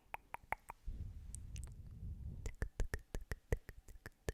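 Close-miked ASMR hair-plucking sounds: sharp little clicks, a few at first and then about four or five a second from just past halfway. A soft low rubbing rumble runs in between, from about a second in.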